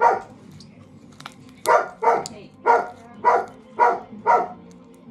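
A dog barking: one bark at the start, then a run of six barks at about two a second.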